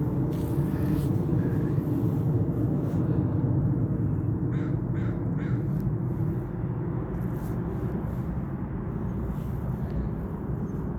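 Three short bird calls in quick succession about four and a half seconds in, over a steady low outdoor rumble.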